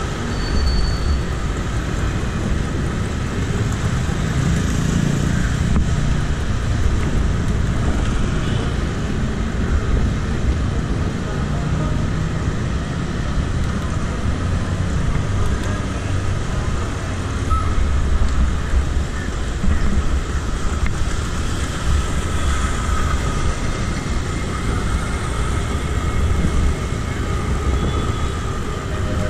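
Bicycle ride on a city road: an uneven wind rumble on the camera's microphone with road traffic noise around.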